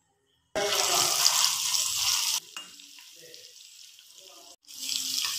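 Spice-coated prawns sizzling loudly as they fry in hot oil in a wok, stirred with a spatula. The sizzle cuts in abruptly about half a second in, drops to a quieter level about halfway through, and comes back loud near the end.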